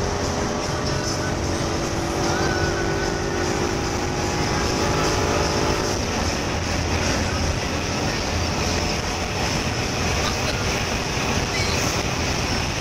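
In-cabin sound of a 2016 Ford Mustang GT's 5.0-litre V8 pulling at high revs as the car accelerates past 200 km/h, under heavy wind and road noise. The engine note sinks into the wind noise about six seconds in.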